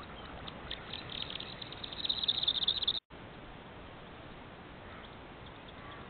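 Superb fairy-wren singing: a rapid, high twittering trill that grows louder about two seconds in and stops abruptly about three seconds in. After it there is only the steady faint hiss of a trail camera's microphone.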